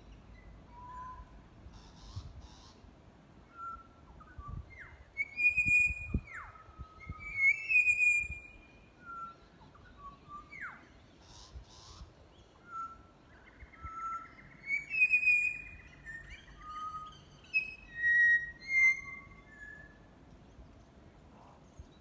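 Butcherbird singing: a run of clear, fluting whistled notes with a few quick downward slides, in loud phrases about five to eight seconds in and again around fifteen to nineteen seconds in, with a short buzzy rattle mixed in.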